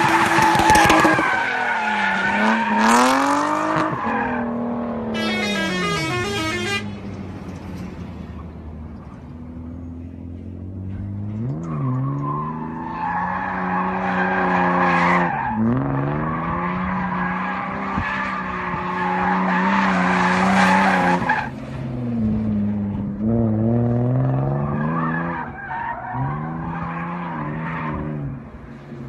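BMW E36 325's 2.5-litre M50B25 straight-six revving hard and dropping back again and again, sitting low for a few seconds near the middle. Tyres skid and squeal at times.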